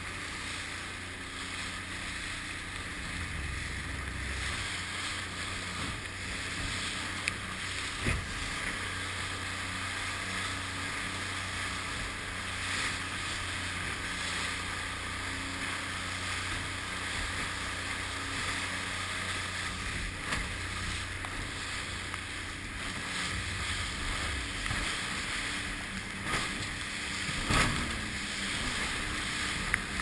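A Stabicraft aluminium boat running under outboard power through rough surf: a steady engine drone under rushing water, spray and wind buffeting the microphone. Twice, about eight seconds in and near the end, the hull slaps sharply on a wave.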